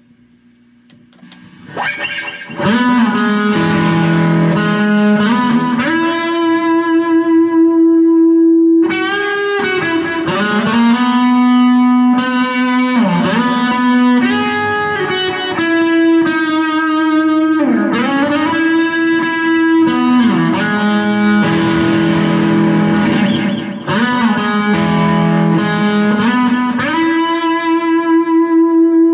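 Distorted electric guitar playing a slow melody of long held notes with bends and slides, coming in about two seconds in.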